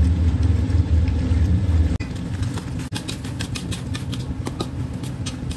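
Metal spatula scraping and tapping against an iron wok while stirring, a quick run of short scrapes starting about three seconds in. Under it runs a low steady rumble that drops about two seconds in.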